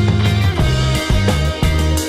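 Background rock music with electric guitar, bass and drums at a steady beat.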